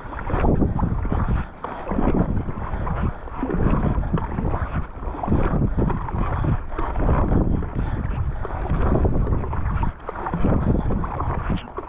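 Kayak paddle strokes: Werner Cyprus paddle blades digging through the water in a quick, steady rhythm, the sound swelling about every one and a half to two seconds. Heavy wind buffets the microphone throughout.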